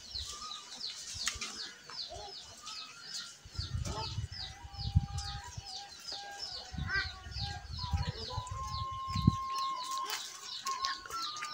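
A bird calling a steady run of short, high, falling chirps, about three a second. Low thuds and rumbles come in between about three and a half and nine and a half seconds in.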